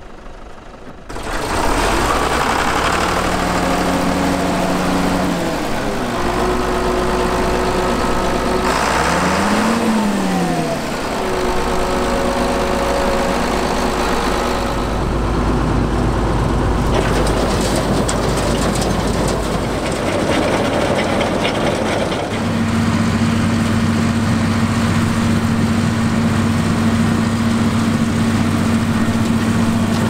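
John Deere 8820 Turbo combine harvester running in barley: its turbocharged diesel engine and threshing machinery drone together. The engine pitch rises and falls a few times in the first half, then holds steady.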